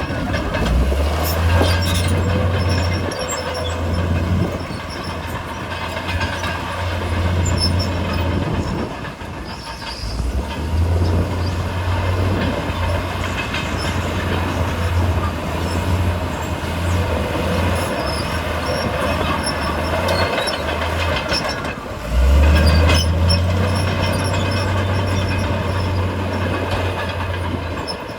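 Komatsu D68E bulldozer's diesel engine working under load, with the steel tracks squealing and clanking. The engine note drops off briefly a few times and comes back strongly near the end.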